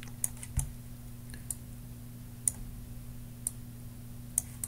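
Computer mouse clicks, sharp and scattered at roughly one a second, over a steady low electrical hum.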